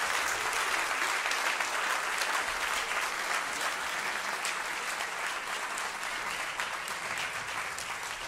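Concert audience applauding with dense, even clapping that tapers off slightly toward the end.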